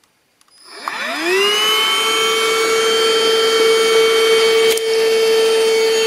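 National NH-VS1515 cordless stick vacuum's motor starting about a second in, its whine rising in pitch as it spins up, then running at a steady pitch with rushing air as it sucks up dirt. A single brief click near the end.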